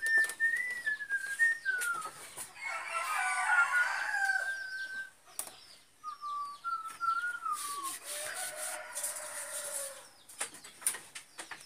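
Roosters crowing several times in succession, each crow a long pitched call. A few sharp knocks come in between.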